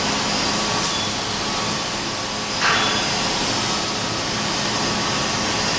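Steady background machinery noise in a workshop, with a low hum. A short, louder sound comes about two and a half seconds in.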